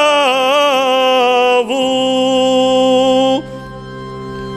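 Solo male voice chanting an Armenian church hymn in long, ornamented held notes, joined by a low held drone about two seconds in. The voice breaks off about three and a half seconds in, leaving a quieter gap before the next phrase.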